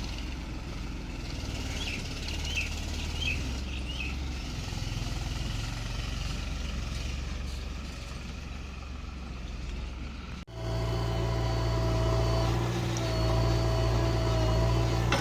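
Diesel engine of heavy machinery running steadily, with a few bird chirps in the first few seconds. About two-thirds of the way through, the sound cuts abruptly to a louder engine carrying a steady high whine.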